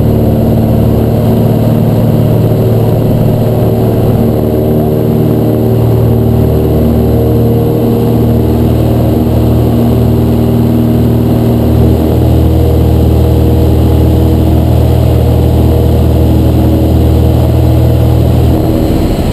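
A 1956 Cessna 172's six-cylinder air-cooled piston engine and propeller at takeoff power, a loud steady drone heard from inside the cockpit. The low drone shifts slightly near the end.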